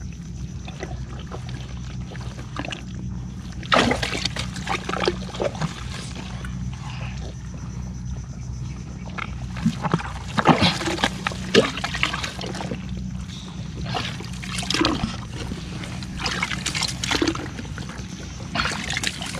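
Shallow marsh water splashing and sloshing in several short bursts, over a steady low hum.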